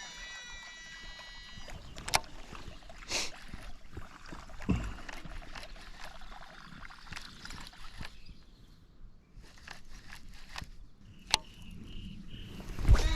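Casting reel's spool whirring as a lure is cast out, then a few sharp clicks and knocks of tackle handling, and another cast whirring near the end.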